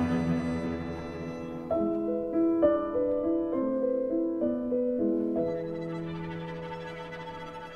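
Piano quartet (piano, violin, viola and cello) playing a slow, quiet passage. A held chord dies away, then a line of notes enters about two seconds in, and the level slowly sinks toward the end.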